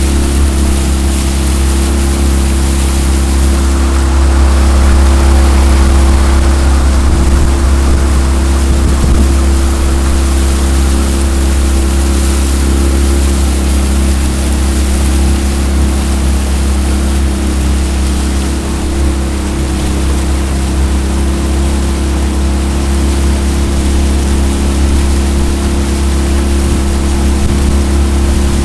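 Jon boat's outboard motor running steadily under way, a constant low drone with a rush of water along the hull, swelling slightly a few seconds in.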